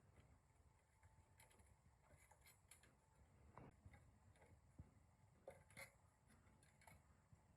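Near silence: low room tone with a few faint, scattered light clicks.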